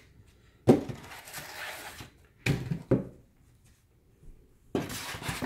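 Unpacking sounds as a soundbar in a felt sleeve is lifted out of its cardboard box and laid down: a sharp knock about a second in, two more knocks a couple of seconds later, and rustling of the box and packaging near the end.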